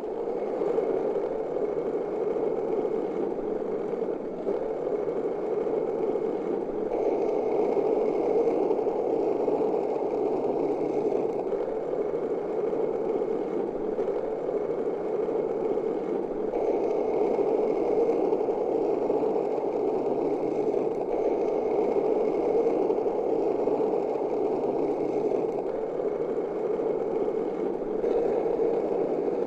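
Skateboard wheels rolling steadily over pavement, a continuous gritty rumble with small shifts in level every several seconds.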